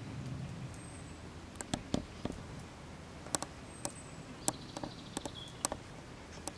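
Brown bear sitting in a pond and moving its paws in the water: a scattered series of short, sharp splashes and drips, over a steady low background rumble.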